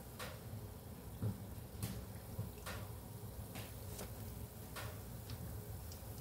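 Metal kitchen tongs clicking as they handle freshly fried sesame binangkal balls in a plastic colander: scattered sharp clicks, roughly one a second, over a low steady hum.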